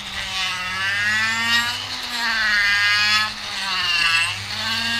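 Vevor 780 W flex shaft grinder's motor running, its pitch rising and falling several times as its speed changes, over a steady low hum.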